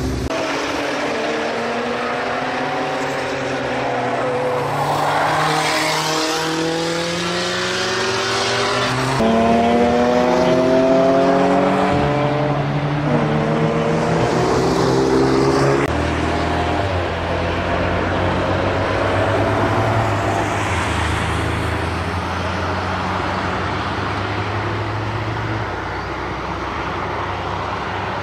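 Engines of several vehicles accelerating past one after another, each engine tone rising in pitch as it goes.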